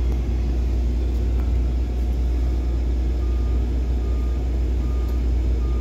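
Excavator's diesel engine running steadily, a low drone heard from inside the cab. About three seconds in, a reversing alarm starts beeping, a little more than one beep a second.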